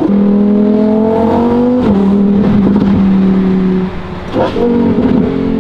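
Lamborghini engine pulling hard under acceleration, with a short break about two seconds in, as at a gear change. The engine lifts off briefly near four seconds, then pulls again.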